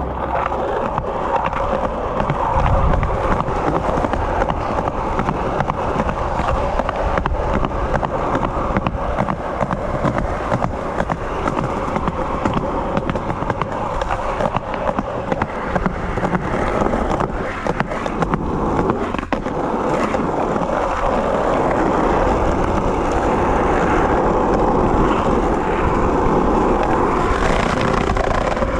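Skateboard wheels rolling over pavement: a continuous rumble broken by frequent sharp clicks and clacks, a little louder in the last third.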